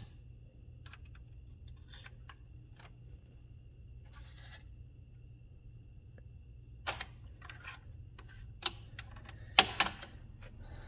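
Scattered light plastic clicks and taps from fingers handling a Marantz DV4200 DVD player's disc tray and clamp mechanism, the loudest near the end. A steady faint hum and a thin high whine run underneath.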